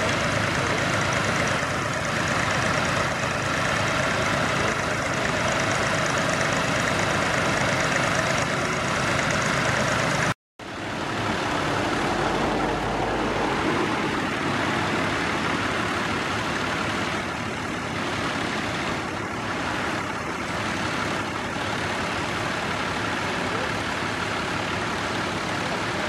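Massey Ferguson tractor engine running steadily under load while pulling a mounted plough through the soil, with a brief break about ten seconds in.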